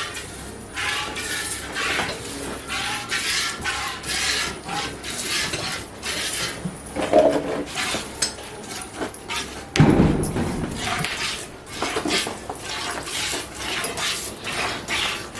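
Milk squirting into a metal pail as a buffalo is milked by hand, in a steady rhythm of about two squirts a second. A single dull thump comes about ten seconds in.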